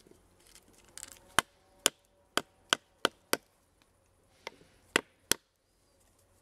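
Wooden baton striking the spine of a knife to drive the blade diagonally into a stick, cutting a notch. A run of sharp wooden knocks, about two a second, then a short pause and two more near the end.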